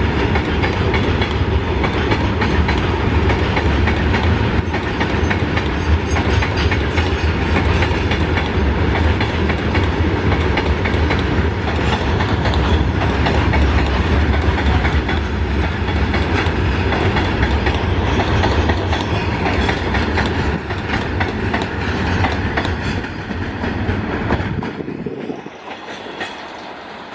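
Loaded freight train rolling past with a heavy steady rumble, its wagon wheels clicking over the rail joints. The low rumble drops away suddenly about 25 seconds in, leaving a quieter rolling sound.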